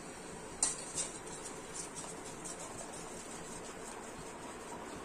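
A metal spoon clinking and scraping against a steel plate and saucepan as cornflour slurry is scraped into milk. A sharp clink comes about half a second in, another soon after, then lighter taps and scrapes.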